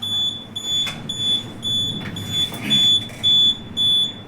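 Notifier fire alarm control panel's built-in piezo sounder beeping: a high, steady-pitched beep about twice a second, left unacknowledged while a program download to the panel is in progress.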